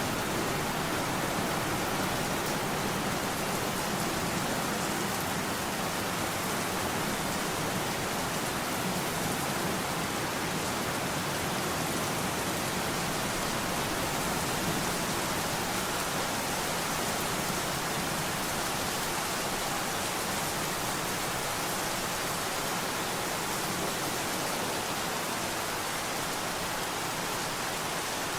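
A steady, even hiss with no breaks and no separate sounds in it.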